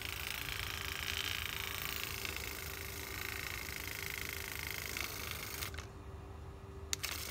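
Steady background hiss and faint low hum, with a few light clicks as a handheld plastic milk frother is handled; the hiss drops out for about a second near the end.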